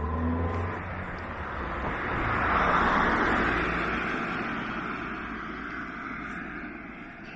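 A car passing by on the road: tyre and engine noise swells to a peak about three seconds in and then fades away.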